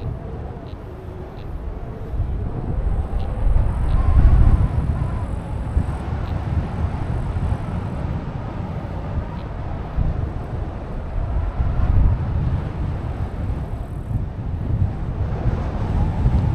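Wind buffeting the microphone: a low, gusty rumble that swells and eases, loudest about four seconds in.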